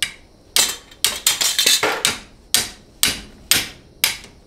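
Hammer blows on a ratchet fitted to a 12 mm ATV brake caliper bolt, knocking the seized bolt loose. About a dozen sharp strikes with a short ring: a quick flurry about a second in, then roughly two blows a second.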